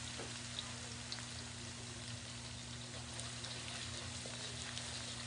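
Minced garlic sizzling in hot oil in a wok, a steady hiss with small scattered crackles, as it caramelizes toward golden brown.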